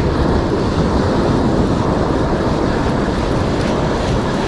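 Wind blowing across the microphone over steady breaking surf.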